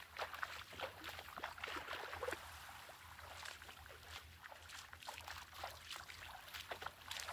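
Faint splashing of shallow seawater: bare feet wading through ankle-deep water, with small waves trickling at the water's edge, in many short irregular splashes.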